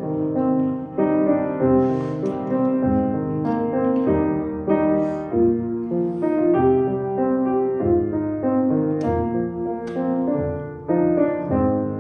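Slow piano music: held chords and melody notes changing about every half second to a second.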